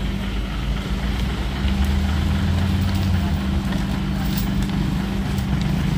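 Truck engine running steadily at idle, with a deeper low hum for a second or two in the middle.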